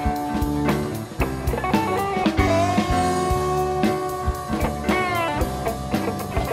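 Background rock music: bluesy electric guitar with bending notes over a steady drum beat.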